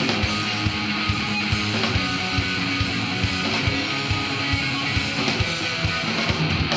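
A three-piece rock band playing live: electric guitar with bass, and drums keeping a fast, steady beat, in an instrumental passage without singing.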